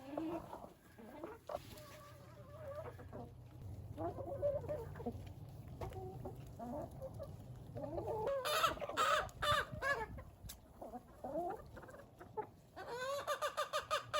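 A flock of chickens clucking, with short calls all through and a busier spell of louder calls about eight seconds in and again near the end.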